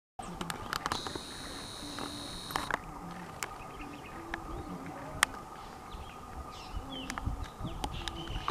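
Dry-forest ambience of insects and birds: a steady high insect buzz for about two seconds near the start, a constant insect drone underneath, short bird chirps later on, and scattered sharp clicks.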